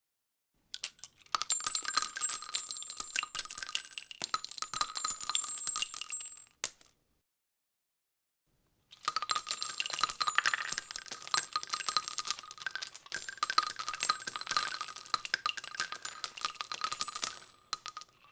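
Many .223 rifle casings dropping onto asphalt at once, a dense metallic clatter of tinks and ringing. It comes in two runs of several seconds each, with a silent pause of about two seconds between them.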